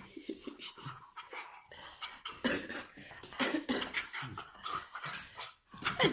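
A pet dog panting, with a short whine near the end.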